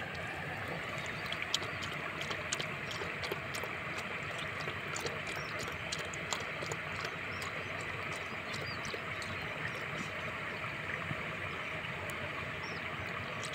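A puppy lapping water from a bowl: quick, irregular wet clicks, thicker in the first half and thinning out near the end, over a steady background hiss.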